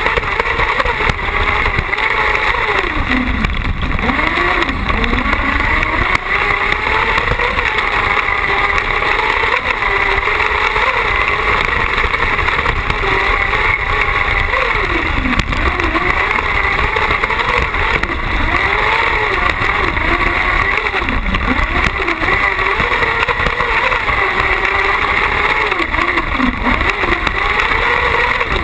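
Carcross buggy's engine at race pace, heard from a camera mounted on the car. The engine note rises and falls over and over, dropping sharply several times before climbing again, over a steady rumble of wind and dirt track.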